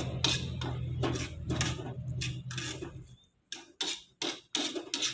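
Metal spatula scraping and knocking against an aluminium wok as meatballs and tempe in soy sauce are stirred, about two strokes a second. A low steady hum runs underneath and stops about three seconds in.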